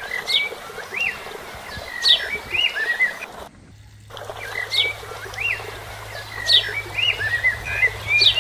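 A songbird singing a short phrase over and over, about four times, each time a quick falling whistle followed by a few arched chirps; the sound cuts out briefly near the middle.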